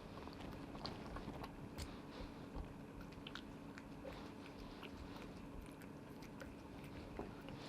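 A cat chewing its food, with irregular small crunches and clicks, over a faint steady hum.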